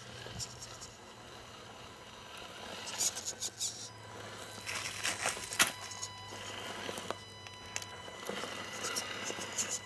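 Tamiya CR-01 Unimog RC crawler driving: a low hum from its electric motor and gearbox that comes and goes, with three spells of crackling as the tyres crawl over dry leaves and twigs, about three, five and eight seconds in.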